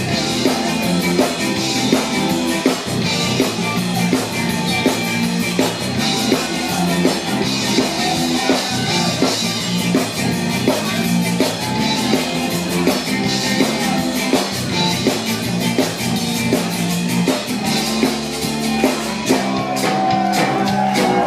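Live band music with a steady drum-kit beat and guitar, played for dancing.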